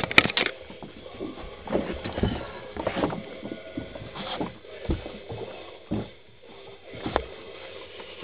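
Loud handling clicks as the camera comes to rest, then irregular knocks and thumps about once a second from inside a fishing boat.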